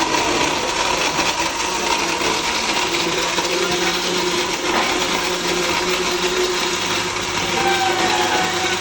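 Electric blender running steadily, blending mango pieces, ice cubes, sugar and water into juice.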